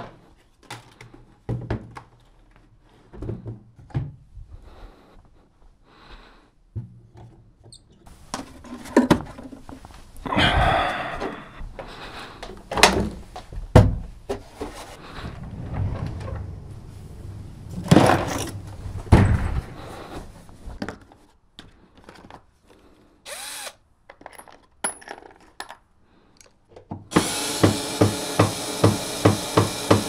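Plastic and metal knocks, clicks and rattles of a racing wheel and its rig being handled and fitted. Near the end a louder, steady rattling sound with a regular beat comes in.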